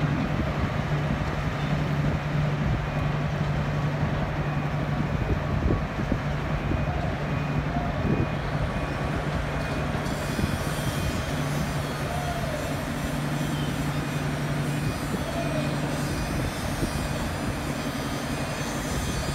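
Engine of heavy construction machinery running steadily, a constant low hum under a wash of site noise.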